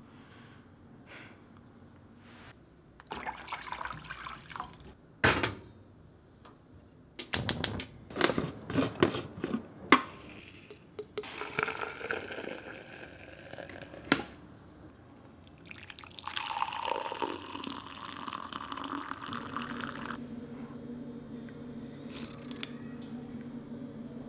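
Coffee being made in a glass French press: knocks and clinks of kitchenware, then hot water poured in. It ends with a steady low hum.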